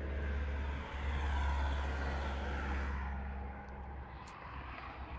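Engine of an Isuzu road sweeper truck running steadily: a deep hum under a rushing hiss that fades about three seconds in, as the sound gets quieter.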